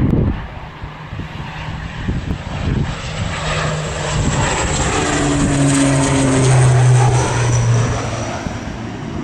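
Dornier 328 twin-turboprop at takeoff power on its takeoff run and lift-off. The engine and propeller noise builds to its loudest about six to seven seconds in, and the propeller hum drops in pitch as the aircraft passes, then the sound fades.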